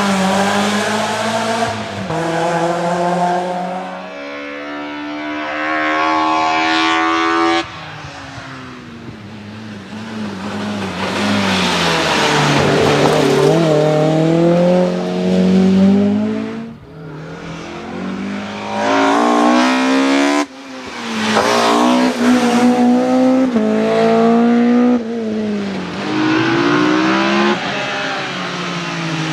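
BMW M3 rally car engine revving hard through the gears. Its pitch climbs, then drops sharply at each shift, with stretches of tyre noise as the car slides.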